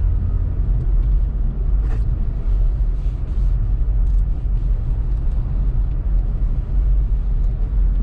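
2018 Honda Civic Turbo Sport hatchback driving on a snow-covered road: a steady low rumble of engine and tyres on snow, with a few light clicks, the clearest about two seconds in.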